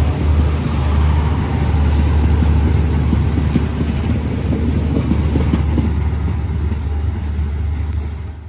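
Passenger train coaches rolling past at speed on the next track: a loud, steady, heavy rumble with wheel clatter. It fades as the last coach draws away near the end.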